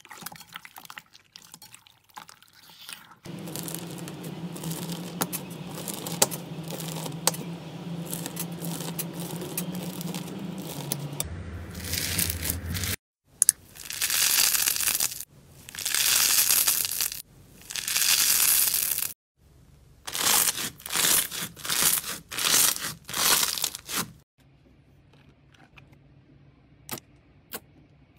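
Slime squeezed, stretched and poked by hand: sticky clicks at first, then steady squishing, then three long crackling, tearing bursts as a foam-textured slime is pulled apart. A run of about six shorter bursts follows, then only a few faint clicks near the end.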